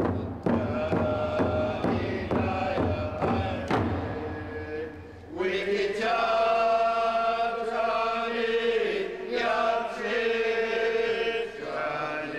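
Traditional Huu-ay-aht First Nation song: voices chanting over a steady beat of about two strikes a second. About five seconds in, the beat stops and a new phrase of long, held sung notes begins.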